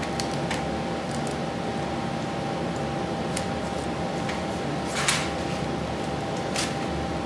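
Short scrapes and rustles from hand-stitching a broom in a hand press, twine and broomcorn being handled, over a steady room hum with a faint steady tone. The loudest is a brief hiss about five seconds in, with a smaller one a second and a half later.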